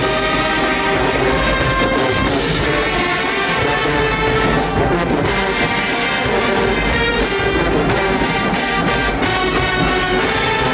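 Marching band playing loud brass music, with sousaphones and horns holding sustained chords and percussion strikes punctuating it.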